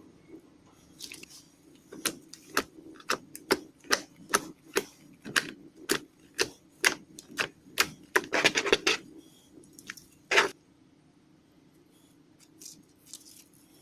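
Slime being poked and pressed, giving a series of sharp clicking pops about twice a second. A denser crackle comes about eight and a half seconds in and one louder pop near ten seconds, then the clicking stops.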